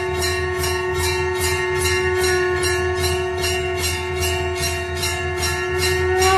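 Background music: a steady held note over a regular beat of jingling bells, about three strokes a second, the held note breaking off near the end.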